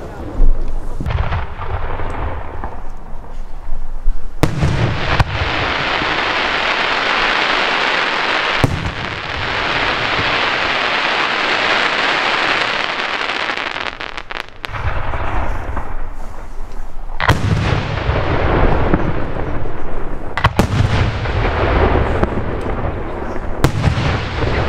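5-inch aerial firework shells firing and bursting overhead: about eight sharp bangs, the loudest just after the start, with long stretches of dense hiss between them.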